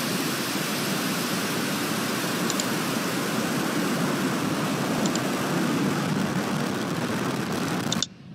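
SpaceX rocket launch roar: a loud, steady rumble and hiss of the engines at liftoff. It cuts off suddenly near the end.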